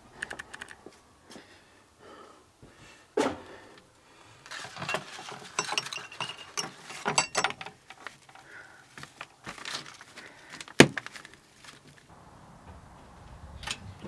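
Small metal clinks and paper rustling as a race bib with safety pins is handled and fixed to a shed wall among hanging gear. Two sharp knocks come about three seconds in and about eleven seconds in.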